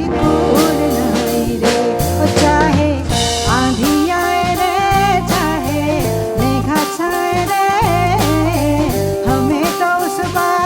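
Folk-rock band playing an instrumental passage, with a drum kit keeping a steady beat under bass and a wavering lead melody.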